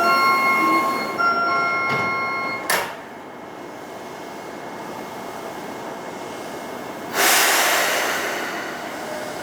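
Platform screen door chime: an electronic chime of several steady tones that repeats, then stops about two and a half seconds in with a sharp knock of the doors shutting. About seven seconds in comes a loud burst of air hiss that fades over about a second.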